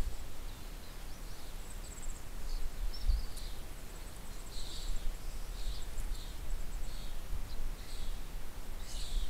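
Low wind rumble on the microphone, with scattered short bird chirps and calls in the background and, twice, a faint rapid high ticking.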